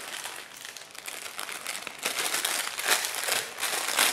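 Plastic crinkling as a squishy toy is handled, growing louder in the second half with the strongest crackles about three and four seconds in.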